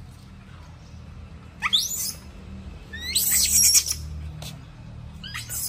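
Pet monkey giving sharp, high-pitched squeals that sweep steeply upward in pitch: one about a second and a half in, a louder cluster of several around three seconds in, and one more near the end.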